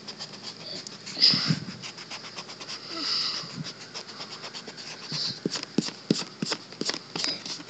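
Pencil drawing on paper: short scratchy strokes among many small clicks and taps from handling close to the microphone.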